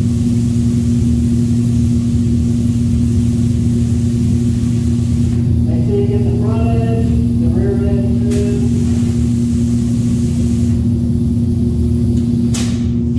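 Paint booth exhaust fan running with a steady, loud hum. Over it, the high hiss of a gravity-feed spray gun's air spraying paint for the first five seconds or so, stopping, then again for about two seconds in the middle. A short voice-like sound comes just before the second spray, and a single knock near the end.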